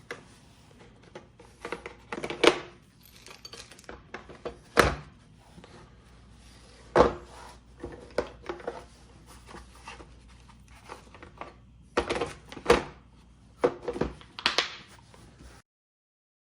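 Hand tools and their kit being handled: irregular knocks, clicks and clatters with rustling between them, the sharpest knocks a couple of seconds apart. The sound stops abruptly near the end.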